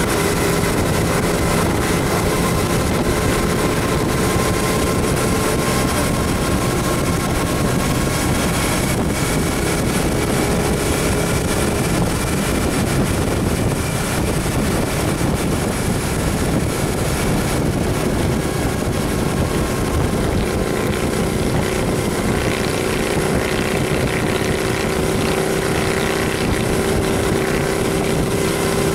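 Motorcycle engine running steadily at road speed, mixed with wind rush on the microphone.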